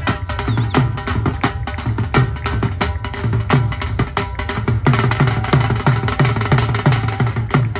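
Live drumming on a large two-headed barrel drum of the dhol type, a steady driving beat with a deep stroke about twice a second and sharper strokes between.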